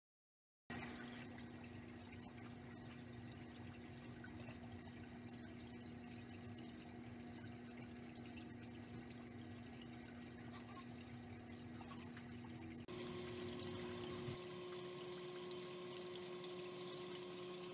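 Faint, steady hum of aquarium filtration equipment with water trickling and splashing; the hum changes to a higher pitch about thirteen seconds in.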